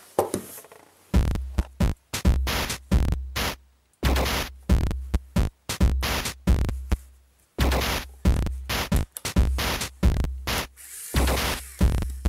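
Electronic background music with a steady drum-machine beat and deep bass, coming in about a second in.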